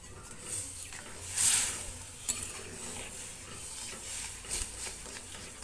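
Metal spatula stirring and scraping semolina in hot water in an aluminium kadai, with light clinks against the pan, as the semolina cooks into a thick dough. One louder swish comes about a second and a half in.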